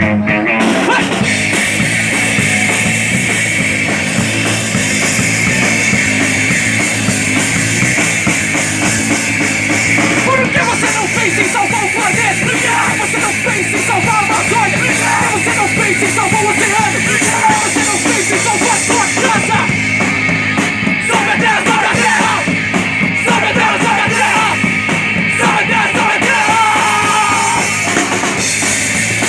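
Live punk rock band playing loudly and steadily, drum kit driving the song.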